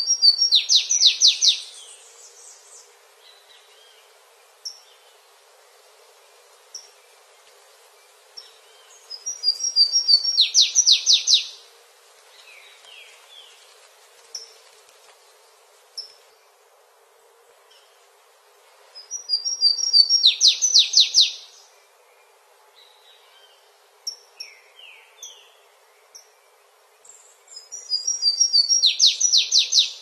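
A small songbird singing the same short high-pitched song four times, about every nine seconds: a few quick opening notes and then a fast, even trill of about ten strokes. Faint short calls are heard between the songs.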